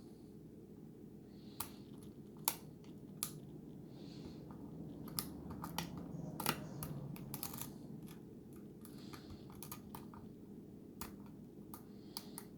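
Lock pick and tension wrench working the pins of a Schlage lock with security pins: irregular small clicks and scrapes in the keyway as the pins are set one at a time.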